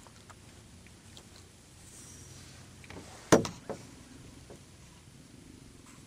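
A paddle knocks against the side of a canoe: one sharp knock about halfway through, a lighter one right after it and a faint third about a second later, over faint low water noise.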